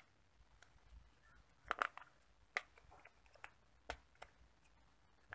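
Hard translucent plastic toy staircase pieces being handled and snapped together, giving a few scattered light clicks and taps.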